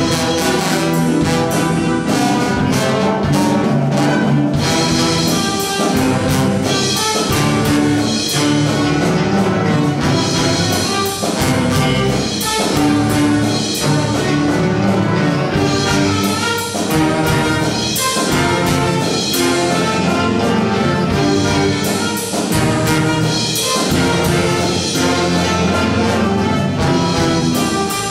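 Live jazz band playing: a front line of trumpets, saxophone and trombone over a drum kit keeping a steady beat.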